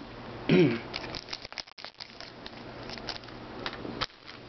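Trading cards being handled and flipped one by one off a stack in the hand: a run of light clicks and paper rustles, ending with a sharper snap about four seconds in.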